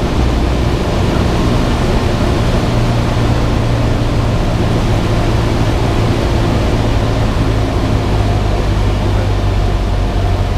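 Cessna 172's piston engine and propeller running at a steady drone, with a constant rush of noise over it.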